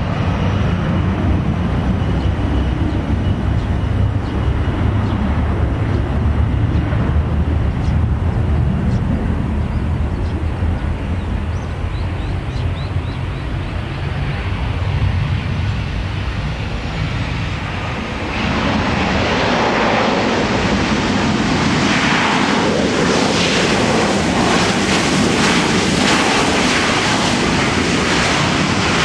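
Boeing 737-800 airliner's CFM56 jet engines on landing: a low, steady rumble with a faint high whine, changing about 18 seconds in to a louder, hissing roar as the jet lands and rolls out.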